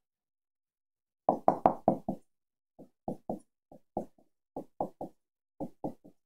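Dry-erase marker knocking against a whiteboard as short characters are written: silent for the first second, then a quick run of four sharp taps, followed by single and paired taps every few tenths of a second.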